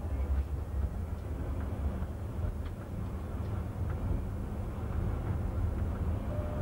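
Tramway Français Standard (TFS) tram running along street track, heard from inside the driver's cab: a steady low rumble from wheels and running gear with faint scattered clicks. A faint steady whine joins near the end.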